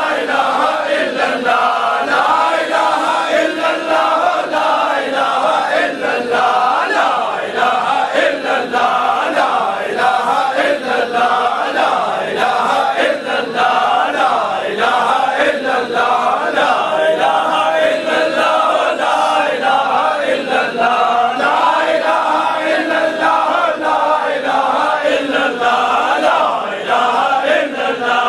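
A group of men chanting dhikr together, repeating a short devotional phrase over and over in a steady rhythm.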